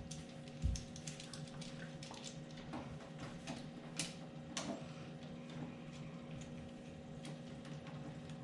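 Scattered light clicks and taps from handling canister-filter hose fittings and clamp pieces, with a soft thump under a second in and two sharper clicks around the middle, over a steady low hum.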